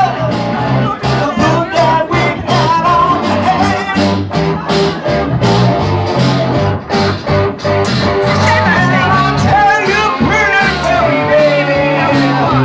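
Live band music played loud: electric guitar, bass guitar and acoustic guitar, with a man singing into a microphone.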